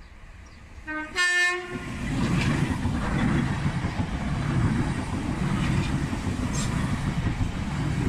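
Merseyrail Class 507/508 electric multiple unit sounding a short two-tone horn blast, low note then high, about a second in. The train then passes close by with a steady rumble and wheels clattering over the rail joints.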